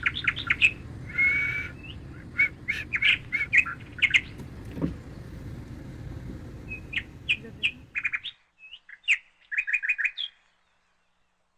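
Small birds chirping in quick, repeated short calls over a low, steady rumble. The rumble cuts off abruptly about eight seconds in; the chirps carry on briefly and stop about ten seconds in.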